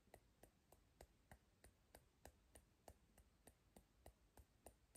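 Fingertips tapping the side of the other hand at the EFT karate point: faint, soft taps, steady at about four a second.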